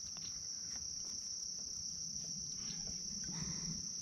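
Insects chirring in a steady, unbroken high-pitched drone.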